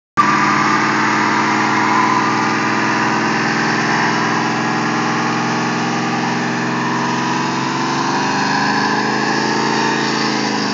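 1967 Dodge Dart GT's engine held at high revs through a burnout, the rear tyres spinning and smoking on the pavement. The engine note stays steady, then dips near the end.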